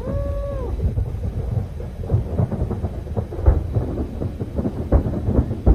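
Fireworks going off continuously: a steady low rumble of booms with sharp cracks and bangs throughout, the loudest around the middle and near the end. A brief whistle-like tone rises and falls at the very start.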